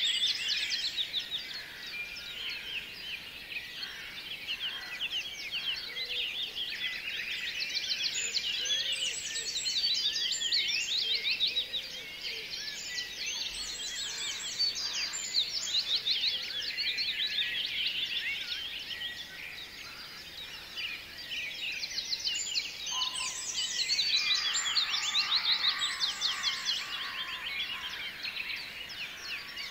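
A dense chorus of many songbirds chirping and trilling, with rapid high notes overlapping continuously, swelling louder around the middle and again near the end.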